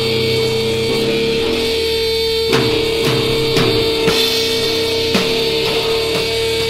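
Slow, heavy sludge/doom metal: sustained distorted guitar and bass chords over a steady held tone, with spaced drum hits coming in about two and a half seconds in.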